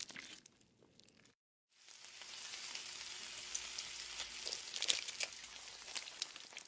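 Food sizzling as it fries in a pan: a steady hiss with scattered pops that starts after a brief gap and cuts off suddenly at the end. Before the gap there is a short stretch of crunching.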